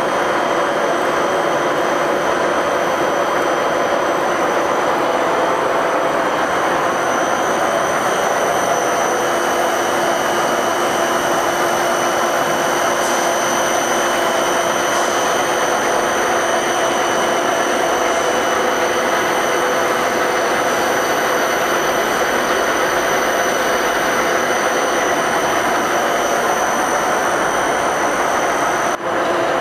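Heavy machine tool running steadily: an even mechanical rush with several steady hums and whines, dipping briefly near the end.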